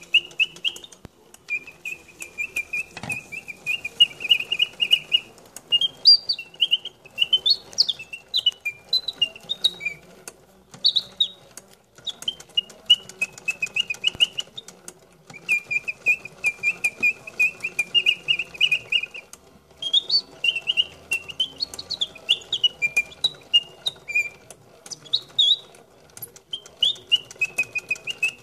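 Wind-up clockwork singing-bird cage with three birds, playing its birdsong: phrases of a steady fast trill alternate with warbling notes that jump up and down, repeating in a cycle, with light mechanical ticking underneath.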